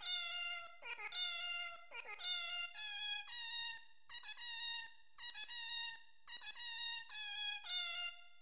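Background music: a melody of short, steady pitched notes stepping up and down in quick phrases, with a meow-like tone.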